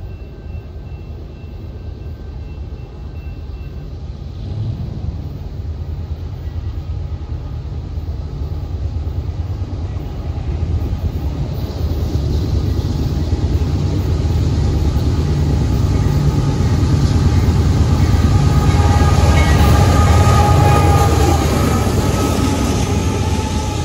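Diesel locomotives leading a CSX ballast train approach and pass close by, their engine rumble swelling steadily and loudest as the locomotives go by, with a higher steady whine joining in near the end.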